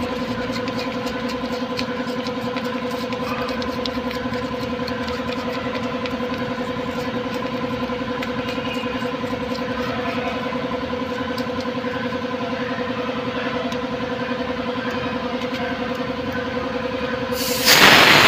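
A steady mechanical hum holding one even pitch, with no change in speed. Near the end a loud hiss of compressed air from a blow gun starts, blowing out the cleaned carburetor body.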